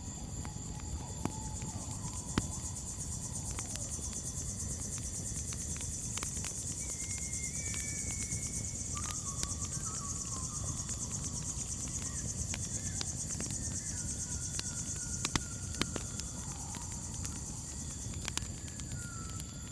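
Crickets chirring in a steady high chorus over a crackling campfire: irregular sharp pops and a low rush of burning wood. Faint drawn-out whistling tones drift in and out.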